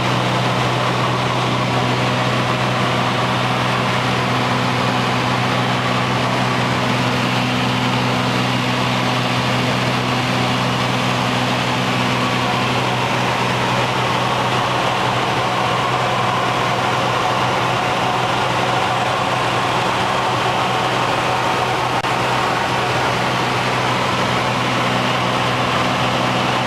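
Cessna U206G's six-cylinder piston engine and propeller running steadily in flight, heard inside the cockpit as an even, loud drone.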